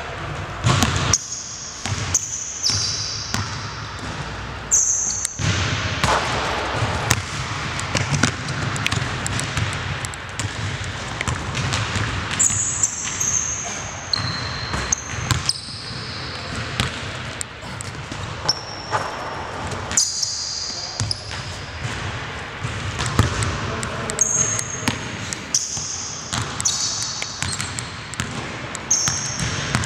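Basketball bouncing on a hardwood gym floor again and again, with short high-pitched squeaks of sneakers on the court in between.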